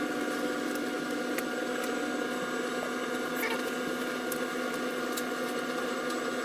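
A steady hum made of several even tones, with a few faint clicks.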